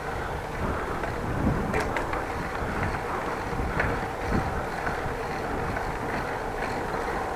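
Steady wind and rolling noise on an action camera's microphone while riding a bicycle.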